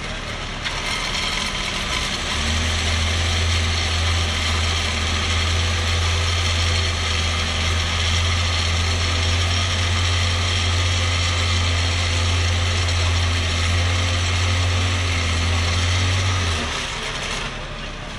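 Vibrating concrete screed running as it is drawn across a freshly poured slab: a loud, steady low hum that comes up a couple of seconds in and cuts off suddenly near the end.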